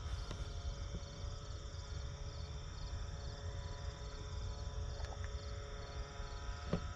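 Night insects, crickets among them, chirping in a steady even pulse, with a constant low rumble underneath.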